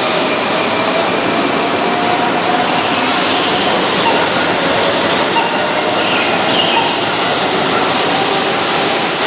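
Keihan 6000-series electric train running into the platform: a steady rolling rumble of wheels on rail, with a faint motor whine carried over it.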